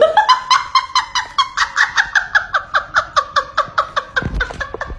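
An animal giving a rapid, even string of short pitched calls, about nine a second, for around four and a half seconds, with a low thump near the end.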